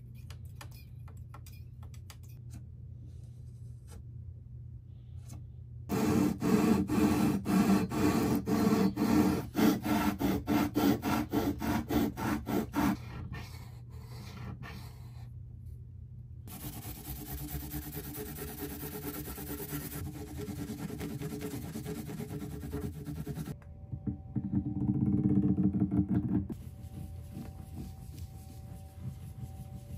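Fret work on a guitar neck: a small metal fret file scraping across the frets in quick repeated strokes for several seconds, followed by steadier rubbing as the frets are polished, with a louder spell of rubbing near the end.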